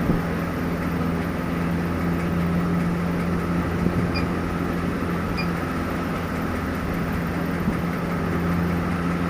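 Steady machine hum with a low drone, with two short high beeps a little over a second apart near the middle.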